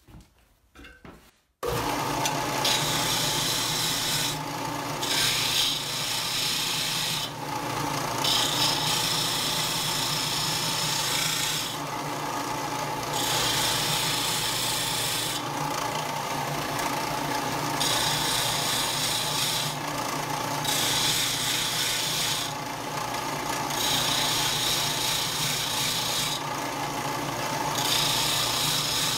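Bench disc sander running, coming in abruptly about two seconds in, as a die-cast metal model truck cab is pressed against the disc over and over to thin it down. Each pass adds a harsh grinding rasp over the motor's steady hum.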